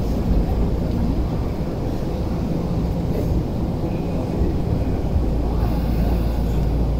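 Running noise of a Tokyu 8500 series electric train heard from inside the car as it slows along a station platform: steady motor and wheel rumble, with a low hum growing stronger about five and a half seconds in.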